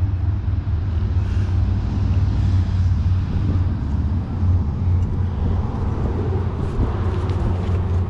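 A steady low rumble from a motor vehicle running nearby, with a few faint clicks in the second half.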